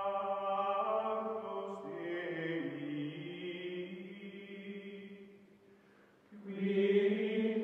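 Outro music of long, held choir-like chords that shift pitch about two seconds in and fade away. A new, louder chord swells in near the end.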